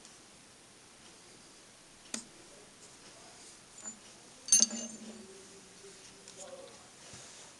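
Metal-on-metal handling at a milling machine: a small click about two seconds in, then one sharp metallic clink about four and a half seconds in that rings briefly, with a few faint ticks after.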